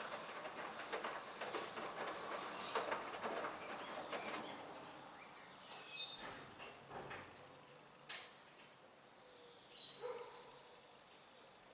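Hoover front-loading washing machine tumbling a wet laundry load in the wash phase: the clothes flop and slosh in the drum, with brief swishes every few seconds. The tumbling dies down and goes quiet over the second half, as the drum slows into a pause.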